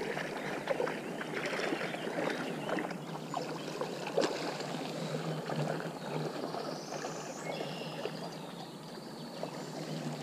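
River water running and lapping, with scattered small clicks and splashes.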